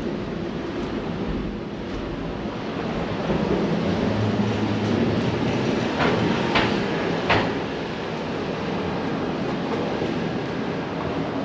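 Steady low rumble of heavy engines at a construction site, with three sharp metallic clanks in quick succession about six to seven seconds in.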